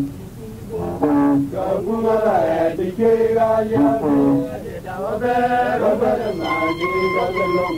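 A voice singing a song in chant style, in short phrases with pauses between them. Near the end a steadier, long-held note comes in.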